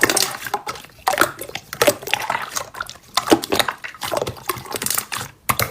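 Slime being squeezed and poked by hand, with a quick run of wet, sticky clicks and squelches.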